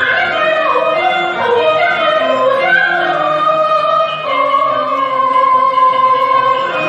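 Cantonese opera (yueqiu) music: a melodic line with sliding notes that settles into one long held note about two-thirds of the way through.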